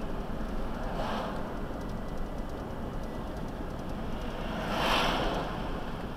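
Steady road and engine noise heard from inside a moving car's cabin, with two swells of passing-vehicle noise: a small one about a second in and a louder one about five seconds in as an oncoming garbage truck goes by.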